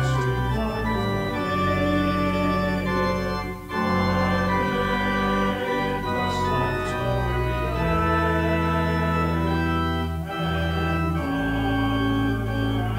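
Church organ playing slow, sustained chords, the bass and inner notes changing every second or two.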